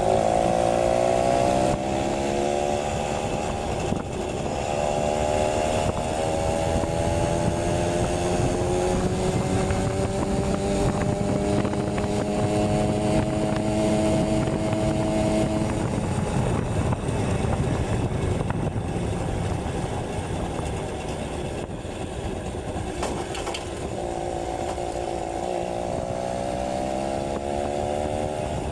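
Yamaha V50's small two-stroke single-cylinder engine running under way as the bike is ridden. Its pitch climbs slowly for the first half, drops off about sixteen seconds in, and rises again near the end.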